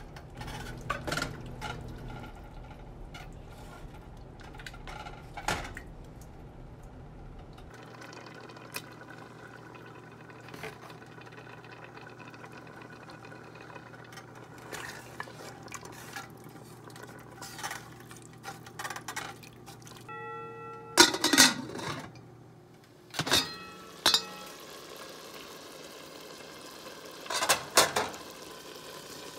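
Utensils knocking and scraping in an aluminium cooking pot as a spinach and paneer curry is stirred. A metal spoon clanks sharply against the pot a few times in the second half, the loudest strikes about two-thirds of the way in and near the end.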